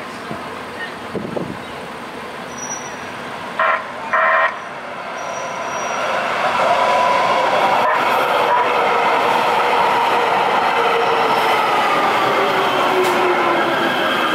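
LA Metro light rail train gives two short horn blasts about four seconds in. It then passes close by over a grade crossing, its running noise growing loud about six seconds in, with a whine that slowly falls in pitch as the cars go by.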